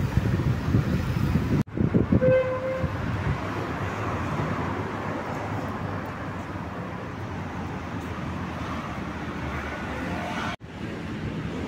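City street traffic noise with a short car horn toot about two seconds in. The sound cuts out abruptly twice, at edits.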